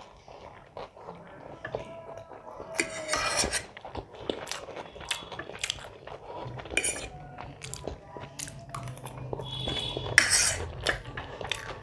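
Metal cutlery clinking and scraping against a plate of noodles in scattered sharp strokes, the strongest about three seconds in and again near ten seconds.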